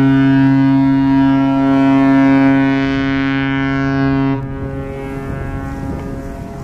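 Cruise ship MS Island Princess's whistle sounding one long, deep blast as a fog signal. It stops about four seconds in and leaves a faint, fading echo.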